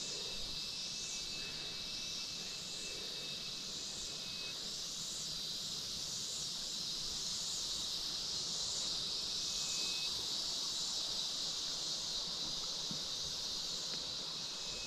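Insects chirring in a steady high-pitched drone that swells and fades in a regular pulse about once a second, with a thin steady whistle from another insect through the first few seconds and again briefly around ten seconds in.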